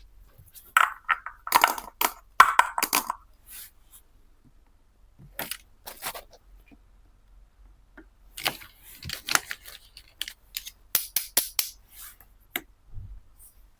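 Plastic toy pieces being handled: irregular clusters of clicks, taps and crackles, densest about a second in and again past the middle.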